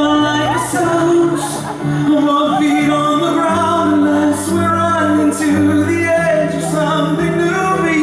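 A male pop vocal group singing a ballad live, with a bass line and held chords behind the voices and a light cymbal beat.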